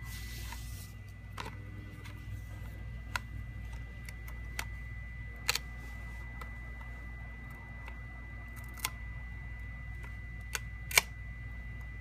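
Scattered light clicks and taps from handling a phone's back glass and plastic playing-card spacers, about six of them, the loudest near the end. Under them runs a steady low hum with a faint steady high tone.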